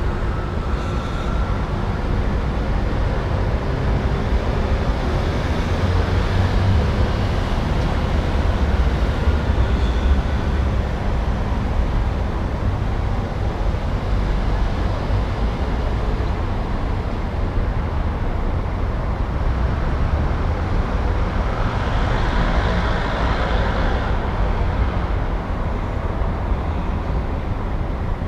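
City street traffic ambience: a steady rumble of passing cars and buses. The traffic swells as vehicles go by, loudest about two-thirds of the way through.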